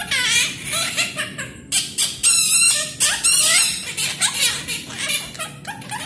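Quaker parrots chattering: a quick run of high, warbling chirps and squawks that bend up and down in pitch, several calls a second.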